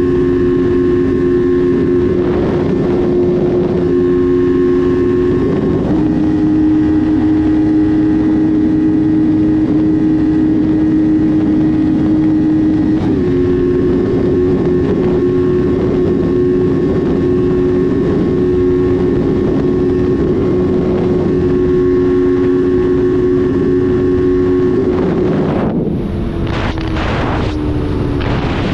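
An engine running at a steady speed under heavy wind noise. Its pitch steps up about six seconds in, drops back about seven seconds later, then falls away near the end as it slows.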